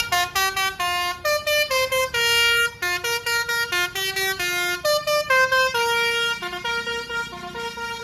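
Basuri musical air horn on a tour bus playing a fast telolet tune: a rapid run of short notes stepping up and down. The notes grow fainter from about six seconds in.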